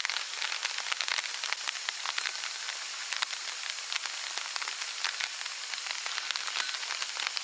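Rain falling steadily: a dense patter of many small drops.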